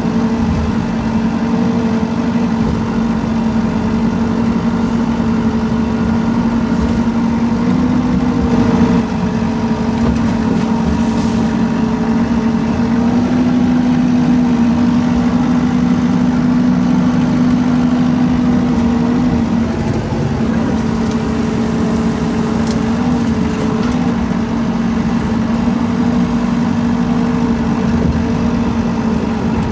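Rippa R32 mini excavator's diesel engine running steadily as it digs, a constant drone whose pitch shifts slightly now and then.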